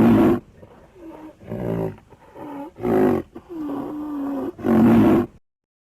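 Rhinoceros calling: a series of about six pitched, groaning calls, three loud ones about two seconds apart with quieter, longer ones between.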